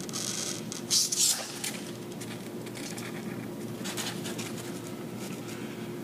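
Expanded polystyrene foam being scored with a hot-wire engraving tool and handled: a few short scratchy, rustling sounds, the loudest about a second in, over a steady low hum.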